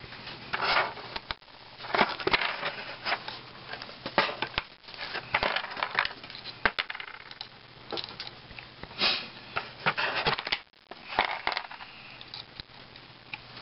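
Tin snips cutting through a coil of 14-gauge galvanized steel wire, one sharp snip after another at an uneven pace, with the cut rings dropping and clinking into a cardboard box.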